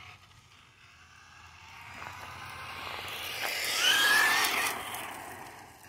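Battery-powered remote-control car driving past, its electric motor whine and tyre noise growing louder to a peak about four seconds in, then fading away.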